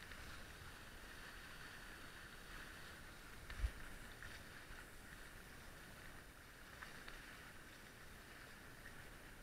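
Faint, steady rush of water and wind as a small sailing catamaran moves through choppy sea, with a single low thump about three and a half seconds in.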